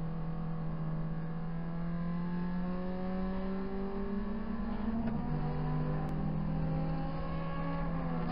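A Proton Saga BLM race car's four-cylinder engine under full acceleration, heard from inside the cabin. The revs climb steadily, drop at a gear change about five seconds in, then climb again, with another dip near the end.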